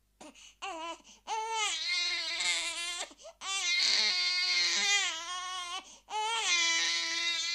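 A baby crying: it starts with a few short cries, then settles into three long wails, each a second or two long, with short gasps for breath between them.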